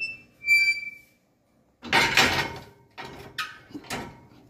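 Painted metal security gate (burglar-bar 'grill') being closed and locked: a short high squeak from its hinge, a loud rattling clank as it swings shut about two seconds in, then two sharp metallic clicks about half a second apart as the latch is worked.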